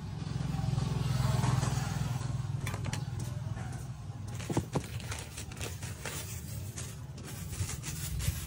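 Low engine rumble of a motor vehicle that swells about a second in and then eases off, with sharp knife clicks against the pineapple, and plastic-bag crackle toward the end.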